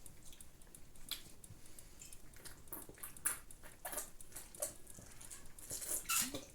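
Quiet mouth and handling noises of people drinking: scattered faint gulps, squishy mouth sounds and small clicks, a few seconds apart.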